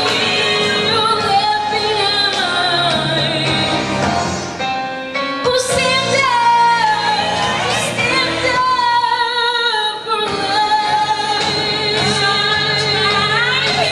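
Teenage girl singing solo into a handheld microphone, with long held notes that slide in pitch.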